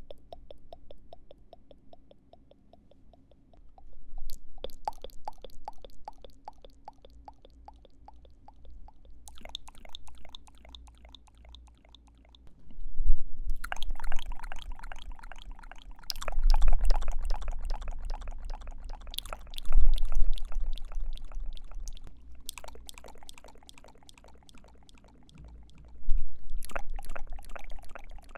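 ASMR mouth sounds close to the microphone: wet tongue and lip clicks in dense runs of a few seconds each, with short pauses between them.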